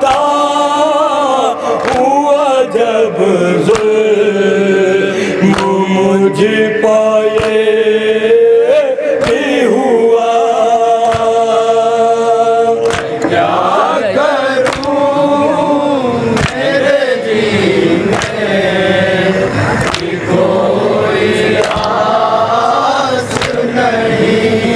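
Noha recitation: a male lead reciter chanting a mourning lament into a microphone, with a group of men chanting along. Sharp slaps at a steady beat, about every second and a half, typical of matam chest-beating.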